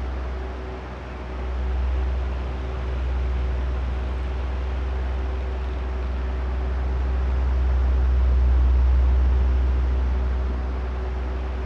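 Electric oscillating fan running: a steady rush of air from the blades over a low motor hum, growing slowly louder and softer as the head turns back and forth.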